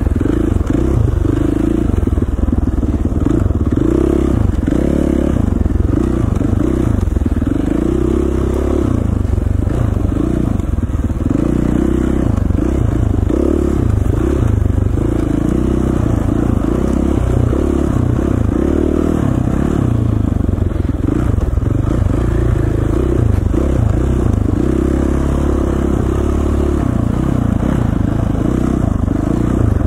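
KTM 450 dirt bike's single-cylinder four-stroke engine running under riding load, its pitch rising and falling over and over as the throttle is opened and rolled off.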